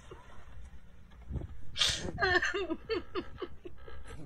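A person laughing: a sharp breathy burst about two seconds in, then a run of short pitched laughs that fall in pitch.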